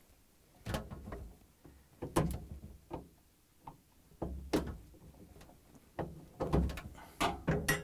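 Flat-blade screwdriver clicking and knocking against the plastic LED light assembly and its release tabs in the freezer, as the tabs are pushed down to free the light. Several sharp, unevenly spaced clicks and knocks.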